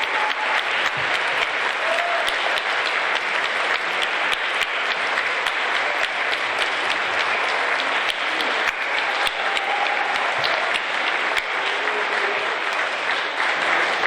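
An assembly audience of schoolchildren clapping steadily throughout, a dense patter of many hands.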